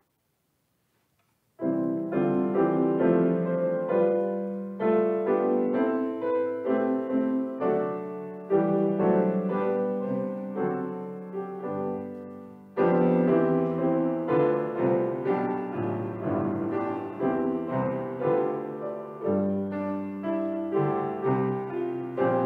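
Piano music: after a moment of silence, it begins about a second and a half in with chords struck roughly once a second, each fading before the next.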